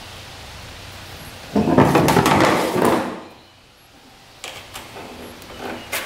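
Hands working on a small outboard's recoil starter and pull cord: a loud rustle lasting about a second and a half comes in about a second and a half in, then, after a short lull, a few light clicks and knocks of parts being handled.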